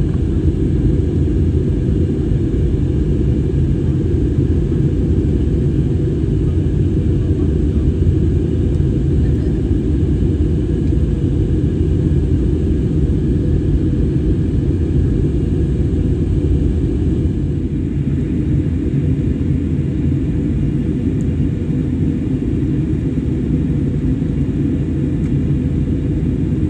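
Steady cabin rumble of an Airbus A320-251N in flight: its CFM LEAP-1A engines and airflow, heard from inside the cabin. The fainter hiss above the rumble eases slightly about two-thirds of the way through.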